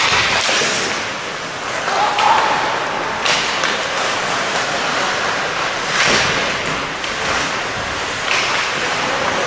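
Ice hockey play in a rink: a steady noisy hiss with several short bursts of skate blades scraping and carving the ice, about three seconds apart.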